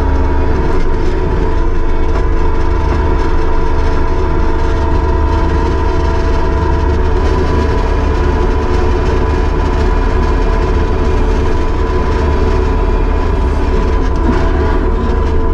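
Kubota SVL75-2 compact track loader's diesel engine and hydraulics running steadily under throttle, a loud low rumble with a steady whine on top.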